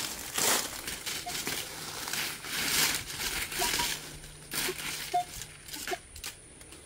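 Dry leaf litter crunching and rustling in irregular bursts as a metal detector's search coil is swept through it and feet step on it, with a few faint short tones. The crunching eases off in the last second or so.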